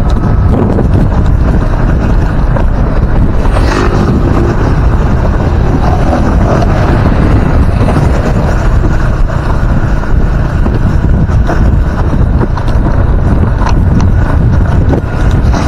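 Loud wind buffeting an action camera's microphone on a moving motorcycle, over the low running of the motorbike and its tyres on the road.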